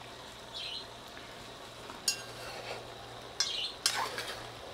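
A metal spoon turning pieces of pork in a metal pot, scraping and knocking against the pot a few times, over a faint steady sizzle of the pork browning in the pot.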